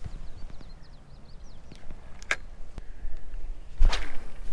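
Handling noise from a shirt sleeve rubbing against a chest-mounted action camera: low rumbling with two sharp scrapes, about two seconds in and again near the end.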